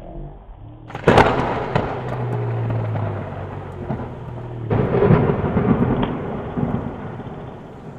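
Rumbling noise on the camera microphone outdoors as a BMX bike rides down a dirt trail toward it and past. The noise starts suddenly about a second in and surges again near five seconds.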